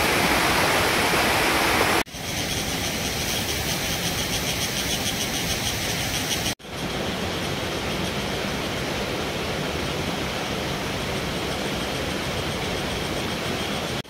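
Steady rush of a waterfall's falling water, with no distinct events in it. It breaks off abruptly twice, about two seconds in and again about six and a half seconds in, each time resuming with a slightly different tone.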